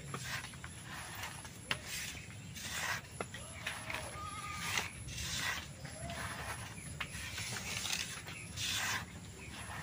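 Hand rubbing and squeezing wheat flour with egg on a plate for a dough: a string of soft, irregular scratchy rustles as fingers rake the crumbly mix against the plate.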